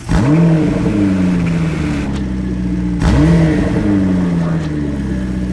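Porsche 911 GT3 flat-six through an Akrapovič exhaust, revved twice about three seconds apart: each time the pitch climbs fast, then sinks slowly as the revs fall back.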